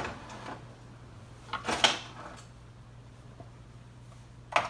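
Someone rummaging through a kitchen drawer of utensils: a knock at the start, a cluster of clatters about two seconds in, and another knock near the end, over a steady low hum.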